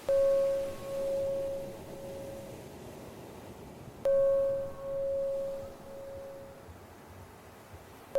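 A bell-like chime struck twice, four seconds apart, each strike ringing out with a slow pulsing decay; it cues each 4-second phase of box breathing. Underneath runs a soft, steady wash of sea sound.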